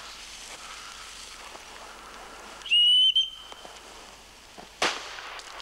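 A signal whistle blown once, a short steady high-pitched blast of about half a second, calling for the clay targets to be thrown. About two seconds later comes a single shotgun shot.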